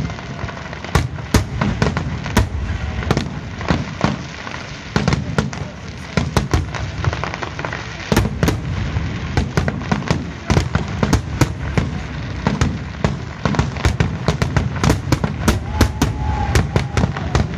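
Aerial firework shells bursting in quick succession: a dense barrage of bangs and crackles over a constant low rumble, packed more tightly from about halfway through.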